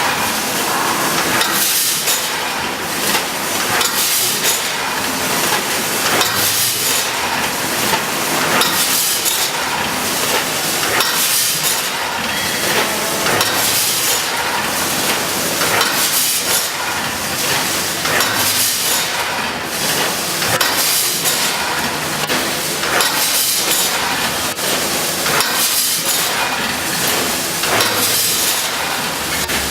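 Vertical bag packaging machine running, with short bursts of hiss repeating about every one to two seconds over steady mechanical noise.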